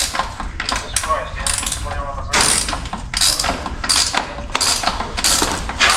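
Hand socket ratchet being worked in short, uneven strokes, each a quick burst of clicking, as bolts are undone on a car.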